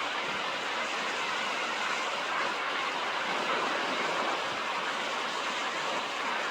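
Waterfall's rushing water, a steady, unbroken roar.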